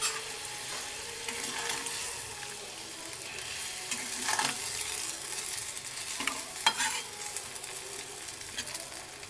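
A spatula stirring okra and potato curry in a pan, the curry sizzling steadily, with the spatula clattering against the pan twice, about four and a half and just under seven seconds in.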